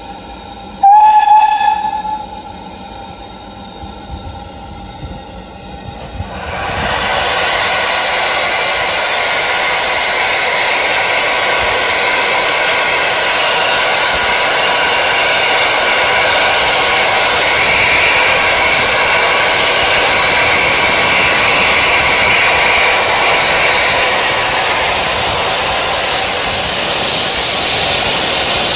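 BR Standard Class 4MT 2-6-0 steam locomotive 76084 gives one short whistle blast about a second in. From about six seconds on it lets off a loud, steady hiss of steam from its open cylinder drain cocks.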